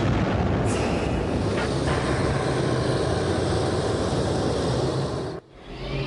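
Battle tank on the move: a steady, loud rumble of engine and tracks. It breaks off suddenly about five seconds in and picks up again a little quieter.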